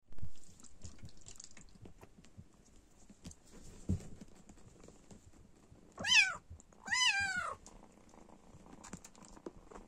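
Six-week-old Bengal kitten meowing twice, a short high call and then a longer one that falls away at its end, over soft handling noises.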